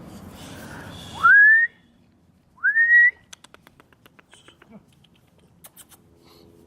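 A person whistling two short notes about a second and a half apart, each sweeping quickly up in pitch and then holding. A run of faint quick ticks follows.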